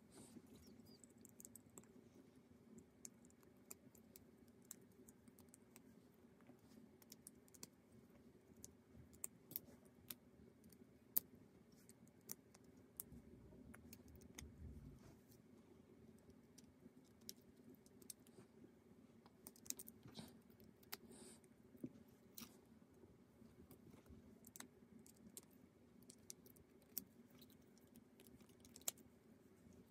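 Faint, irregular small clicks and taps, a few sharper than the rest, over a low steady hum.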